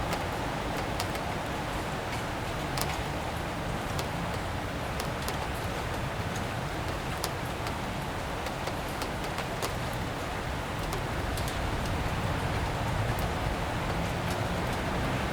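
Steady rain falling on a city street, with scattered droplet ticks and a low traffic rumble underneath. Near the end a vehicle's low engine hum comes up.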